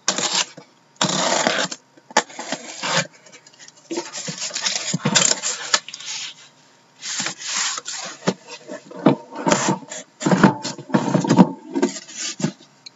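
Cardboard shipping case being handled and lifted off a stack of shrink-wrapped boxes: irregular scraping and rubbing of cardboard, with a few light knocks in the second half.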